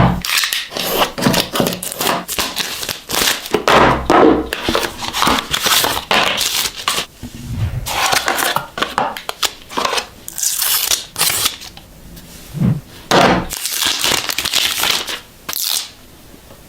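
A smartphone's retail packaging being unboxed: plastic wrap tearing and crinkling and the cardboard box being handled, in an irregular run of rustles, rips and clicks that stops about a second before the end, leaving a steady hiss.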